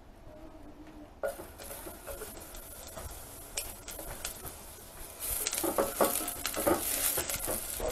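Onion rings frying in hot oil in an enamel pot: a faint sizzle that grows much louder about five seconds in as the onion goes in, with clicks and scrapes of a spatula stirring against the pot.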